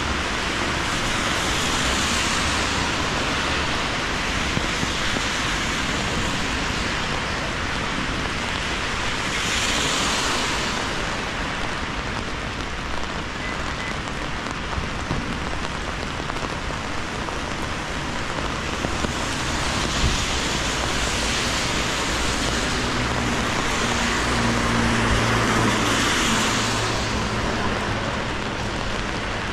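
Steady rain on an umbrella overhead and on the wet pavement, with the tyre hiss of cars on the wet road swelling and fading several times, around ten seconds in and again later.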